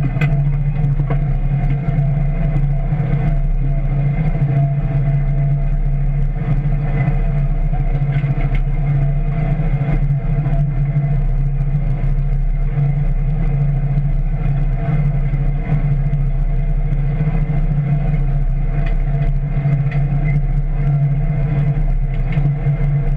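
Steady low drone and rumble of a tractor pulling a row-crop lister bar through the soil, with no change in pace.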